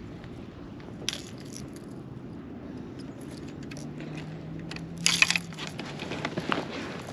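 Clattering knocks and rattles of gear being handled in a fishing kayak, a few scattered ones about a second in and a louder cluster around five seconds in, over a low steady hum.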